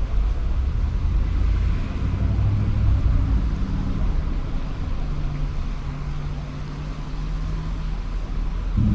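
Street traffic: a car engine running with a low, steady hum that shifts slightly in pitch, over a general roadway rumble.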